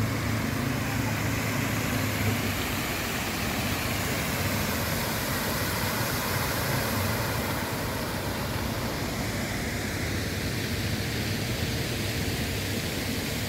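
Fountain jets in KLCC Park's Lake Symphony pool splashing back into the water: a steady, even rush of falling water.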